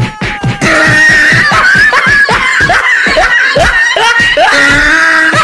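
Boys screaming and wailing loudly, starting about a second in, over music with a steady quick beat.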